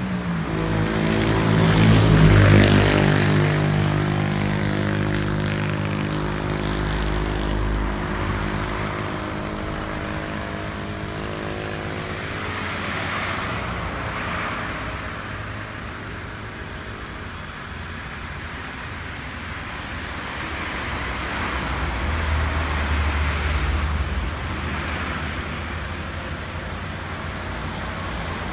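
A motor vehicle's engine passing close by: loudest about two seconds in, then fading away. Road traffic noise follows, with another vehicle going by about 22 seconds in.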